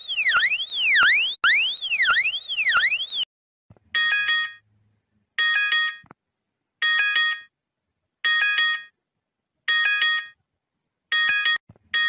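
Electronic emergency alert alarm tones. First a wail sweeping up and down about twice a second, which stops about three seconds in. Then, after a short gap, a chord of several steady tones beeps six times, about one and a half seconds apart.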